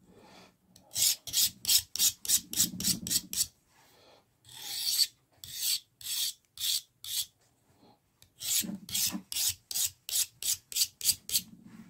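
A knife blade being sharpened on the diamond-coated file of a Leatherman ARC multitool: short rasping strokes, about three a second, in three runs with brief pauses between.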